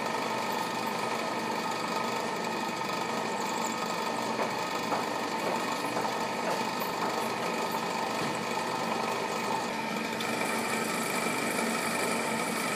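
An electric power tool running steadily with a constant whine, the kind used to cut or machine aluminium profiles.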